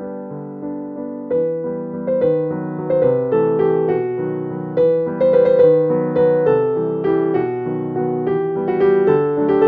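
Background piano music: a melody of struck notes, each ringing on, over lower held notes.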